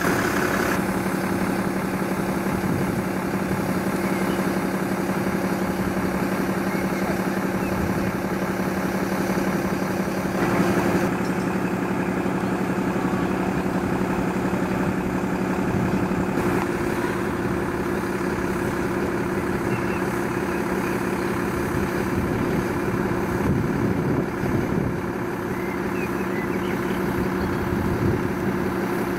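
A heavy truck engine idling steadily, a constant low drone.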